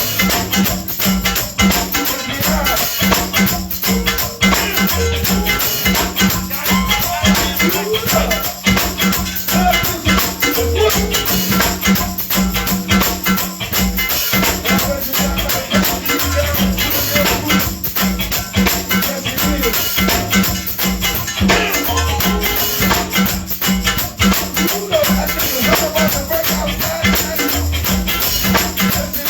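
A band playing live, with steady percussion including a shaker or tambourine.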